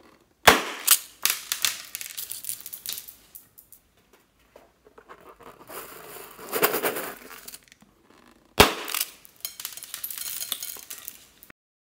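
Rubber balloons cut open with scissors, each giving a sharp pop (twice, just after the start and again about two-thirds of the way through), followed by crackly rattling of small beads and sprinkles in a glass bowl.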